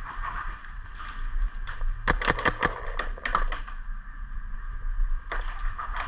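Paintball markers firing in quick bursts of sharp pops, the densest volley about two seconds in, with further shots around three and a half and five and a half seconds.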